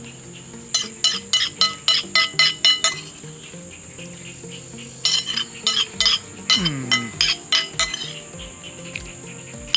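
Insects chirring in one steady high-pitched tone, likely crickets. Over it come two quick runs of bright, ringing clinks, about four a second, and a short falling glide in pitch about two-thirds of the way through.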